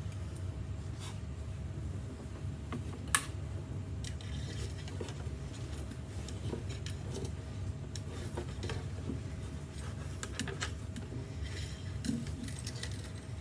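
Handling noise from working on an acoustic guitar body: rustling, with small clicks and taps of wire and hardware, and one sharp click about three seconds in, over a steady low hum.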